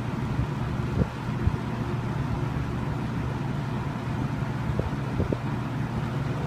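1983 Kmart (Lakewood) K-223 20-inch box fan running steadily on medium speed: a whoosh of moving air over a low motor hum, with a few faint clicks. Its blade is a little out of balance, which gives the cabinet a bit of vibration.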